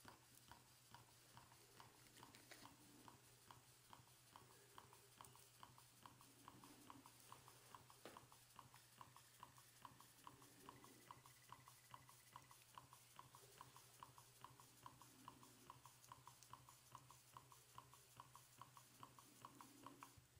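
Twin-cylinder steam engine running, heard as faint, even ticking about four times a second over a low steady hum.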